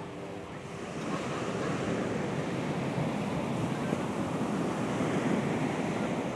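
Ocean surf breaking on a sandy beach, a steady rush of waves that gets louder about a second in.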